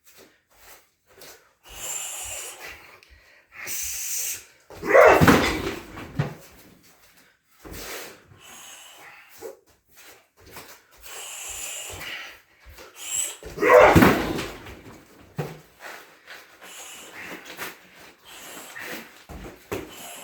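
Two heavy shin kicks thud into a Thai pad strapped to a car tyre, about nine seconds apart, with shorter hissing sounds between them.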